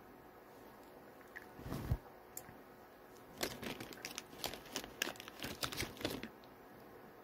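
Hands working with in-shell salt-and-pepper pistachios and their bag. There is a dull rustle about two seconds in, then about three seconds of sharp crinkling and cracking.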